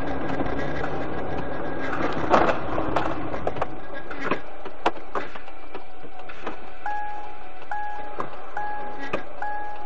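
Dashcam recording inside a moving car: steady engine and road noise with a few sharp clicks and knocks, which thins out about halfway. From about seven seconds in, an electronic beep sounds four times, roughly once a second.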